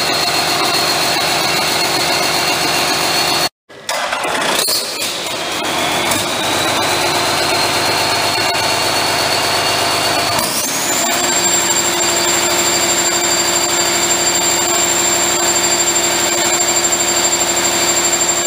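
John Deere 6.8-litre six-cylinder diesel engine running, with a high whine over the engine note. The sound cuts out for a moment about three and a half seconds in; after that the whine rises slowly, then steps up to a higher steady pitch about ten seconds in and holds there.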